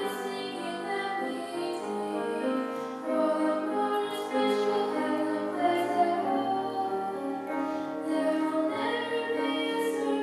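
Youth choir singing, several voices together on held, sustained notes.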